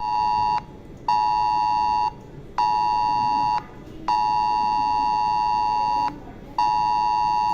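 Mobile phone's emergency alert attention tone for an 'Extreme' alert: a loud two-tone electronic alarm near 1 kHz. It sounds in bursts of one and two seconds with half-second gaps between them.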